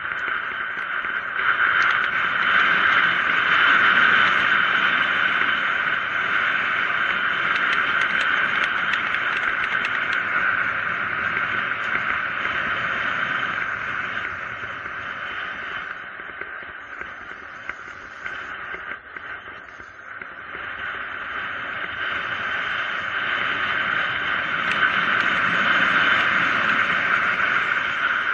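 Steady rushing wind and road noise of a mountain bike descending fast on asphalt. It eases off a little past halfway, then swells again near the end.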